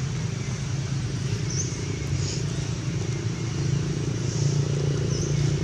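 Steady low hum of an engine running, rising slightly toward the end, with a few short high-pitched squeaks over it.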